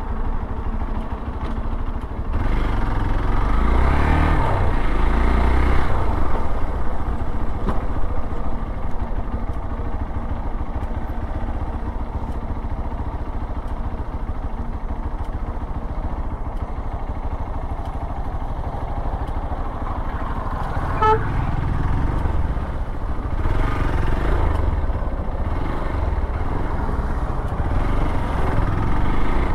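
Hero Xpulse 200 4V's single-cylinder engine running as the motorcycle rides over a rough dirt track, growing louder as it revs about three to six seconds in and again near the end. A short horn beep sounds about two-thirds of the way through.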